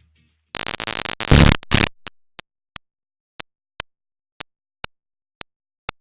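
A loud burst of crackling static noise lasting about a second and a half, followed by a series of sharp single clicks, about two a second.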